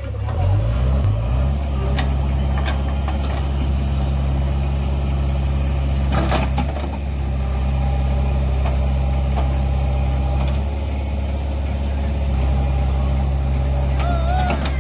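Heavy diesel engine of a tractor or backhoe speeding up in the first second, then running steadily at high revs, easing off slightly around ten and a half seconds. A sharp clank about six seconds in, with a few lighter knocks.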